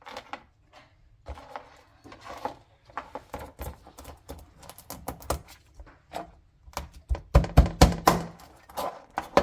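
Knife chopping raw crabs on a cutting board: scattered sharp knocks, then a quick run of heavier chops about seven seconds in.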